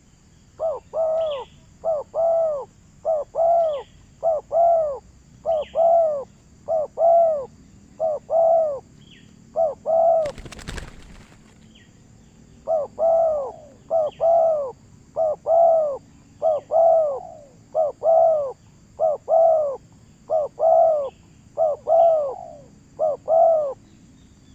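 A bird calling over and over in pairs of arching, mid-pitched notes, roughly one pair a second. The calling breaks off for about two seconds near the middle, with one brief noisy burst, then carries on.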